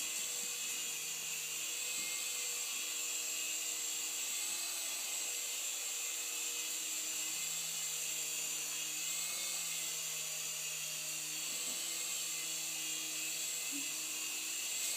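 Small electric RC helicopter in flight: a steady, high-pitched motor whine over a lower hum, both wavering only slightly in pitch.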